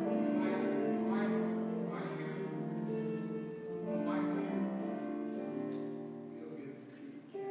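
Instrumental music of slow, sustained chords that change every second or two, fading somewhat near the end.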